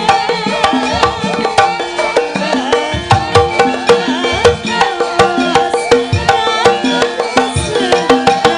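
Javanese gamelan music: a steady run of hand-drum strokes over ringing, sustained metallophone tones.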